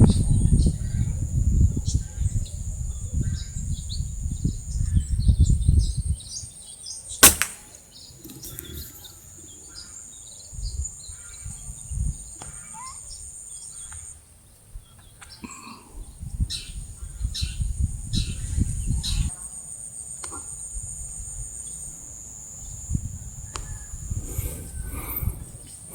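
A single sharp air rifle shot about seven seconds in. Around it, small sparrow-like birds chirp in short scattered calls, and insects keep up a steady high buzz. Wind rumbles on the microphone at the start and again about two-thirds of the way through.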